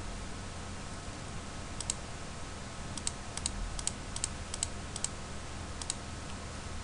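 Sharp clicks of a computer mouse, about eight of them, many in quick press-and-release pairs, from about two seconds in until about six seconds. Underneath is a steady background hiss and a low electrical hum.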